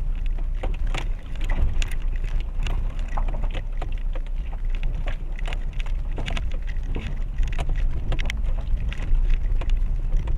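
Renault Duster crawling slowly over a rough, rocky mountain track: a steady low rumble of the engine and tyres with frequent irregular knocks and clatter from stones and the suspension.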